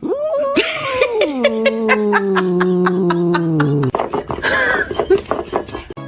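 A long drawn-out vocal sound that falls steadily in pitch over about four seconds, with quick pulses running through it like laughter, followed by a shorter choppy, noisy stretch.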